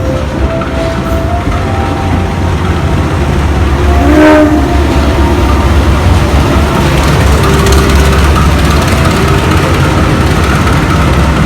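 Diesel train at a station platform, its heavy engine and wheel rumble running steadily, with a short horn note about four seconds in.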